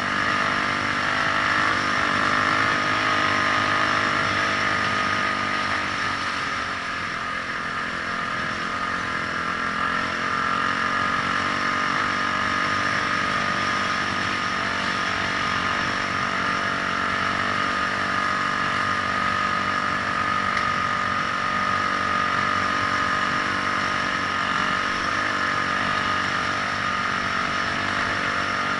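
Vehicle engine running steadily while driving, with a steady whine over a low rumble.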